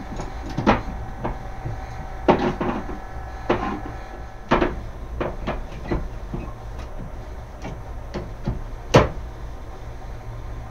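Irregular clicks and knocks of small trigger-style hand clamps being squeezed shut and set on the edge of a bench, with the loudest knock about nine seconds in. A steady low hum runs underneath.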